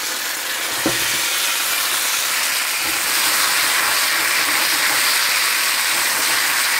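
Beer splashing into a hot frying pan of olive oil around a seitan roast, sizzling and hissing hard as it boils off; the hiss swells over the first second and then holds, with a light knock about a second in.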